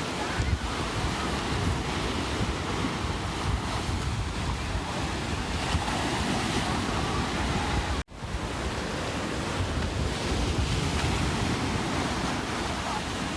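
Ocean surf breaking and washing in a steady rush, with wind buffeting the microphone. The sound cuts out for an instant about eight seconds in.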